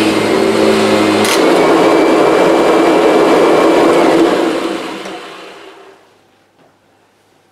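Kirby G6 upright vacuum cleaner running with its brush roll on a rug, with a click and a change in its note about a second in. It is switched off about four seconds in and winds down until it stops.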